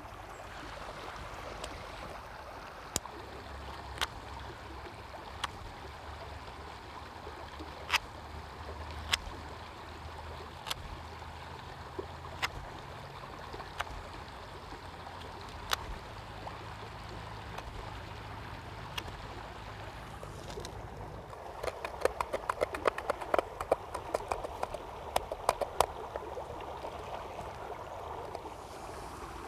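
Steady rushing like running water, with single sharp clicks every second or two, then a rapid clatter of clicks about 22 seconds in.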